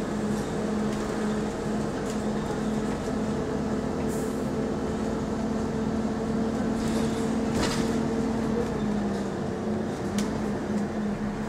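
Interior drone of an Alexander Dennis Enviro400 double-decker bus on the move, its engine cooling fan giving a steady hum. The hum shifts slightly lower about nine seconds in, with a few faint rattles.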